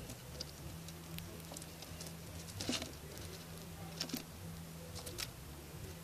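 Irregular sharp clicks and crackles of sunflower seeds and husks being handled as a southern flying squirrel feeds on a wooden feeding board. The loudest cluster comes about halfway through, with two more clear clicks later.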